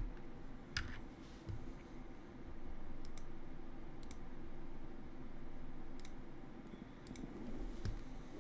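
Computer mouse clicking about eight times at irregular intervals, some clicks in quick pairs.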